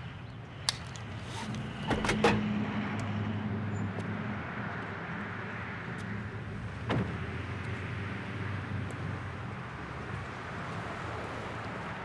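Street and parking-lot traffic ambience with a steady low hum of vehicles. A sharp click comes just under a second in, two sharp door-like knocks about two seconds in, and another knock about seven seconds in.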